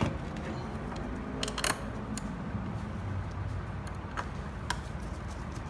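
A few light clicks and taps as a mounting bracket is pressed onto a plastic terminal housing and its screw is driven in with a screwdriver. A low steady hum sits underneath.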